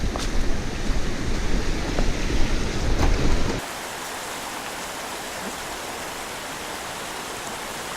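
Wind buffeting the microphone with a few sharp knocks and rattles, which cuts off suddenly after about three and a half seconds to a steady, even hiss like running water.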